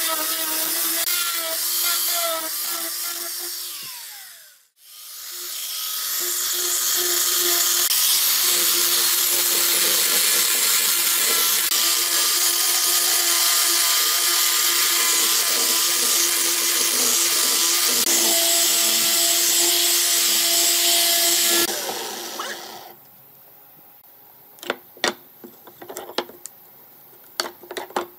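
Angle grinder sanding pine, first with a sanding disc and then with a sanding drum, running with a steady whine; the motor winds down about four seconds in and again a little after twenty seconds. Then a few light knocks of wooden pieces being set on the bench.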